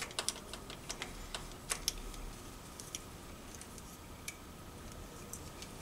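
Small sharp clicks and light taps of metal parts being handled as the stator plate and its wiring are fitted to a Tomos A35 moped engine case: a quick cluster of clicks in the first two seconds, then a few scattered ticks.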